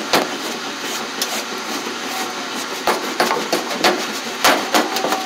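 Plastic-framed dryer lint screen handled by hand: a series of sharp clicks and knocks, most in the second half, over a steady rushing noise.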